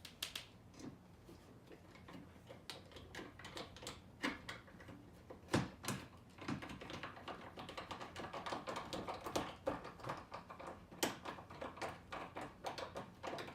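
Hand screwdriver driving a small screw into a mortise lock faceplate: a run of irregular light clicks and scrapes, with a few sharper knocks.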